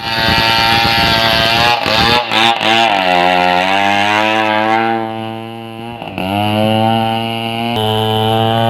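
Chainsaw engine running loud, its pitch dipping and climbing back about two to three seconds in and again near six seconds, then holding steady.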